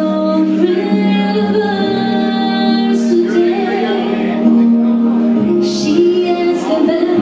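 Live band music: a woman singing lead into a microphone, with electric guitar and drums behind her, her notes held and changing throughout.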